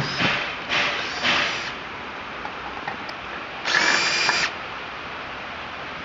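Power drill running briefly for under a second, about four seconds in, with a steady motor whine that rises slightly in pitch, as it drives a screw in the refrigerator's sheet-metal housing. Before it, in the first second or two, there are two short bursts of clatter.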